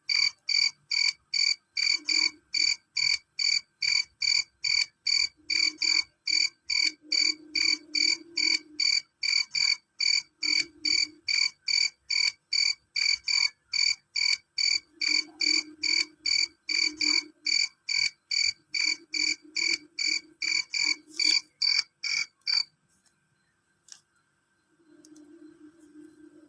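Male cricket calling: loud, shrill chirps repeated evenly about two and a half times a second, which stop abruptly a few seconds before the end. A faint low hum comes and goes underneath.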